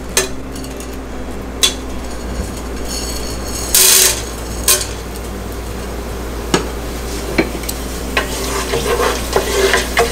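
Whole garam masala spices dropped into hot ghee and oil, sizzling steadily, with a few sharp sizzle bursts, the loudest about four seconds in. Near the end a wooden spatula stirs the spices in the pot with quick clicks and scrapes.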